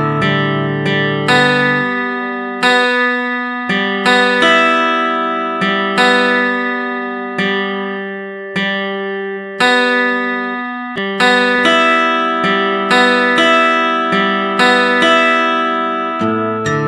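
Background music: plucked acoustic guitar playing slow notes and chords, each one ringing out and fading.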